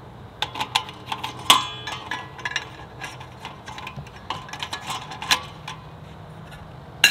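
Metal rails of a barbecue grate add-on clinking and knocking as they are fitted onto the frame of a portable pop-up fire pit: a run of light clicks and taps with a ringing metallic clank about a second and a half in, another clank a little after five seconds, and a sharp clank near the end.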